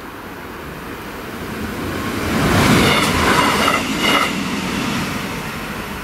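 Class 628 diesel multiple unit passing over a level crossing: the sound swells, peaks about halfway through with the wheels clattering over the track, then fades as the train moves away.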